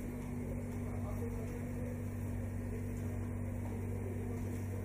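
Steady low mechanical hum holding a constant pitch, with faint voices murmuring in the background.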